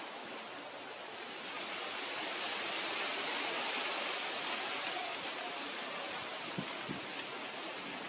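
A steady rushing hiss that swells for a few seconds in the middle, with a few faint ticks near the end.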